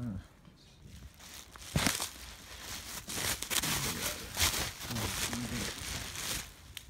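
Clear plastic wrapping crinkling and rustling in irregular bursts as a wrapped package is handled, starting about two seconds in.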